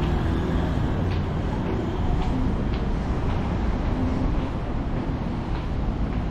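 City street ambience: a steady low rumble of traffic, with faint voices and light ticks of passing footsteps.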